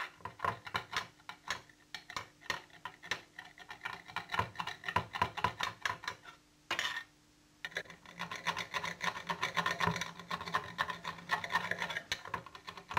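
Tortilla chip pieces being crushed into crumbs by hand: a fast run of crunching, rasping strokes, with a brief pause about six seconds in.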